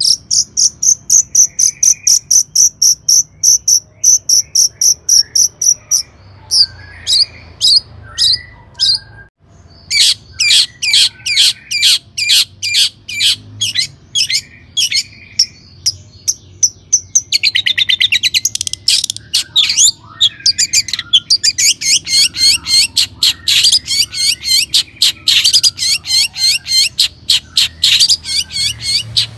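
Long-tailed shrike (cendet) singing loudly: a fast, steady trill, then rapid strings of sharp high notes broken off briefly about nine seconds in, and dense chattering phrases through the second half.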